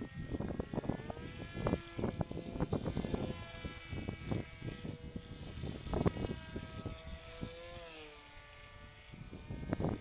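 Electric motor and propeller of a Cheburator foam RC plane whining overhead, rising in pitch about a second in, holding steady, then sliding down and fading near the end. Wind gusts buffet the microphone throughout.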